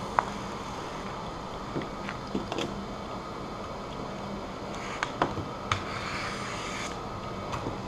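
A plastic squeegee worked over vinyl stripe film, giving a few soft scrapes and light taps over a steady low hum in the room.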